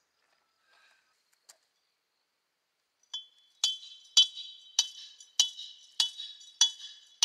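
Steady hammering on metal: about seven sharp, ringing blows at almost two a second, starting about halfway in after a near-silent stretch with one faint click.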